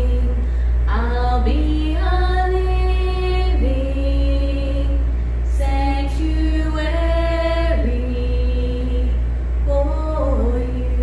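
Two women singing a hymn together from songbooks, slow and in long held notes that change every second or two, over a steady low hum.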